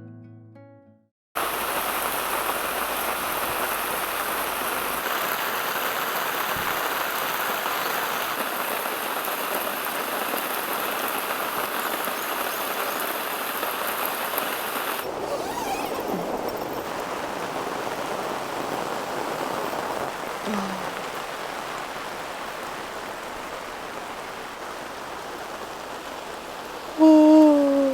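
Heavy rain falling steadily, a dense even hiss. Near the end a person's voice comes in briefly, falling in pitch.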